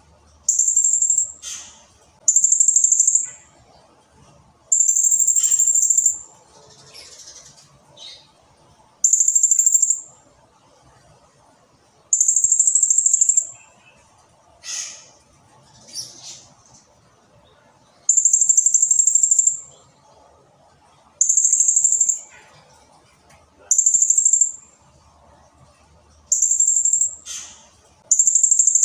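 Blue-crowned hanging parrot (serindit) calling: about ten very high-pitched notes, each about a second long, in a quick irregular series, with a few short sharp chips between them.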